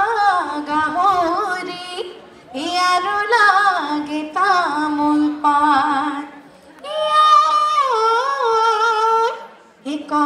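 A recorded song led by a woman's singing voice, with ornamented, wavering held notes over sparse backing, played over a loudspeaker for a dance. The singing breaks off briefly about two and a half seconds in, again near six and a half seconds, and just before the end.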